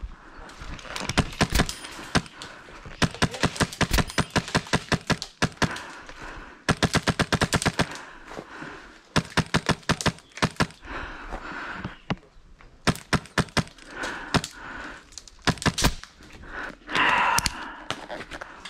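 Airsoft rifle, a Wolverine MTW running on high-pressure air, firing rapid bursts of sharp shots: about six bursts lasting one to two and a half seconds each, with short gaps between them. A brief louder noise comes near the end.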